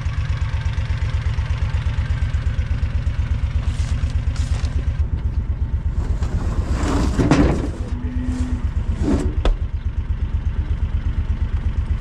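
A farm vehicle's engine idling with a steady low pulsing throb. About seven seconds in there is a louder noisy stretch, and a sharp knock follows a couple of seconds later.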